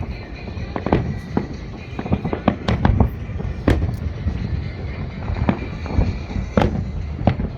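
Fireworks exploding in an irregular series of sharp bangs over a continuous low rumble, with the loudest bursts about one, three, four, six and a half and seven seconds in.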